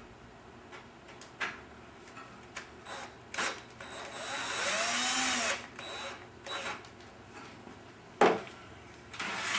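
Electric screwdriver driving a mounting screw into the computer case: the motor runs for about a second and a half mid-way, its pitch rising then falling, amid small clicks of handling parts, with a sharp click near the end.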